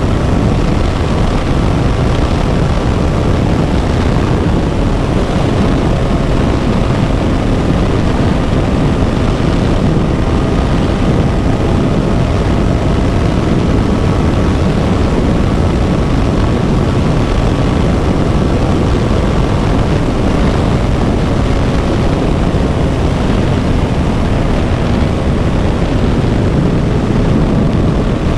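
KTM Duke 200's single-cylinder engine running at a steady cruise, its pitch drifting only slightly, under a dense steady rush of riding noise.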